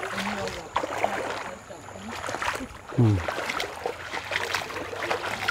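Bare feet sloshing and splashing through shallow muddy floodwater in irregular steps. A short voice with falling pitch comes about three seconds in and is the loudest moment.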